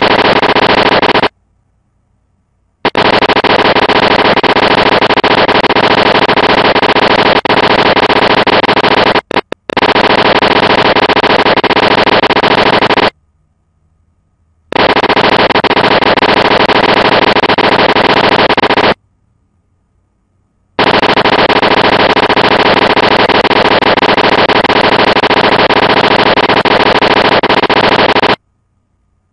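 Rapid typewriter clacking sound effect accompanying text typed out letter by letter. It runs in long stretches and stops for a second or two about a second in, about 13 s in, about 19 s in, and again near the end.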